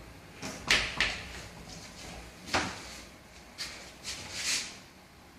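A handful of short knocks and scuffs, about five in all, the sharpest about a second in and again halfway through, with a quiet room between them.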